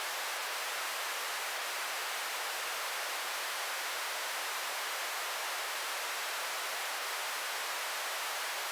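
Steady static hiss like an untuned TV or radio, even and unchanging, with most of its energy in the upper range and little low end.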